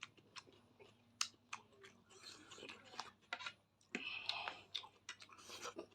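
A person chewing and eating close to the microphone: a run of sharp, wet mouth clicks and short noisy bursts.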